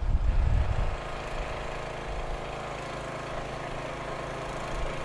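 Wind buffeting the microphone for about the first second, then a steady engine idling.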